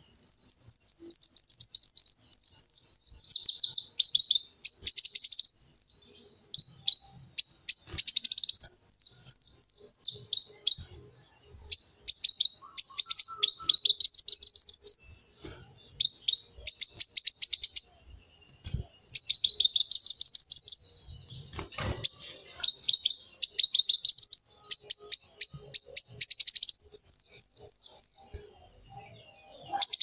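Male kolibri wulung sunbird singing loudly. Each phrase is a fast run of thin, high, downward-sweeping notes lasting a second or two, repeated with short pauses between.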